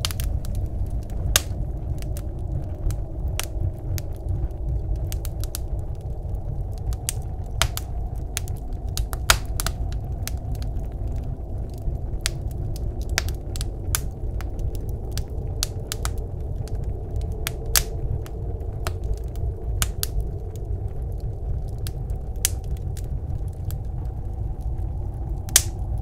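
Wood fire crackling in a wood stove, with frequent irregular sharp pops and a few louder ones, over a steady low rush of blizzard wind.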